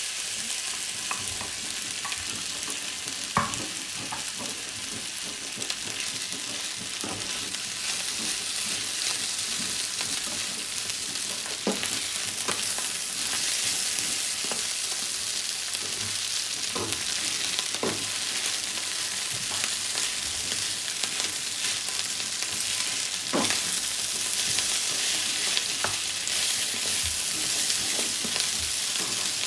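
Fried rice with prawns sizzling steadily in a hot pan, stirred with a spatula that knocks and scrapes against the pan now and then.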